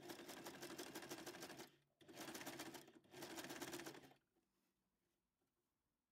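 Electric sewing machine stitching through voile net curtain fabric in three short runs of rapid, even needle strokes, with brief pauses between them, then stopping about four seconds in.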